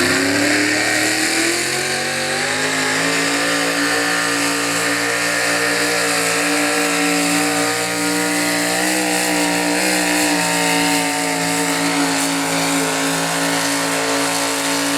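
Pickup truck engine revving up over the first two or three seconds, then held at steady high revs under full throttle during a truck pull run.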